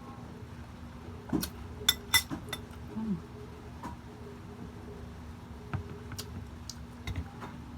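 Scattered clicks and clinks of cutlery and dishes while eating, loudest in a quick cluster about two seconds in, over a faint steady hum.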